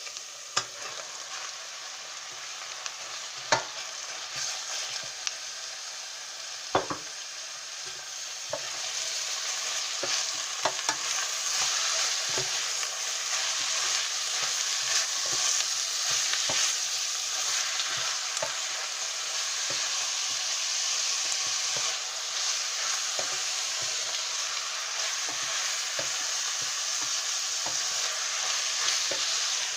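Beef pieces frying and sizzling in olive oil in a pan, with a utensil knocking and scraping against the pan as they are stirred. The sizzle grows louder about eight seconds in.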